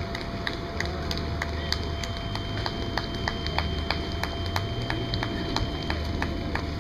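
A quick, uneven string of sharp clicks, about four or five a second, with a thin steady high tone through the middle.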